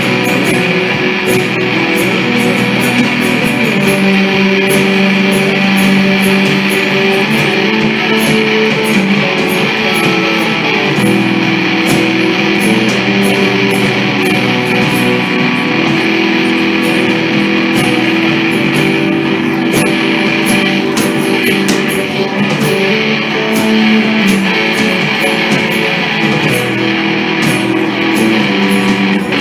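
Live rock band playing: electric guitars and a strummed acoustic guitar over a drum kit, loud and steady throughout.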